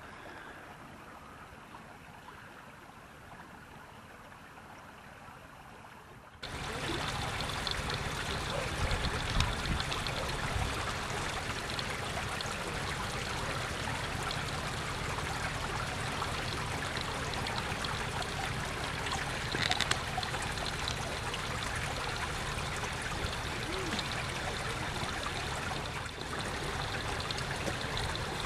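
Steady rushing of water, small waves washing on a pebble shore, jumping suddenly louder about six seconds in.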